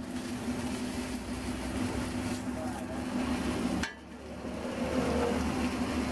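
Bacon slices sizzling on a hot flat-top griddle, with a metal spatula knocking and scraping against the griddle until about four seconds in. A steady low hum runs underneath.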